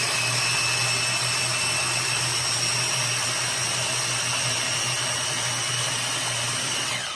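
Small Ninja blender's motor running at full speed with a steady high whine, chopping frozen blueberries into pulp. It winds down and stops near the end.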